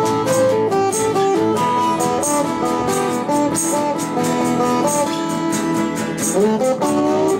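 Epiphone single-cutaway electric guitar playing a melodic lead line, single notes stepping up and down, with a rising string bend near the end.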